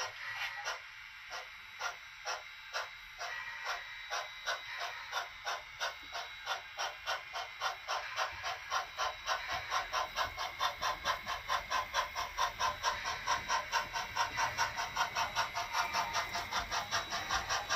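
Sound-equipped On30 model steam locomotive chuffing over a steady hiss as it pulls away. The beat quickens from about one chuff a second to three or four a second as the train gathers speed.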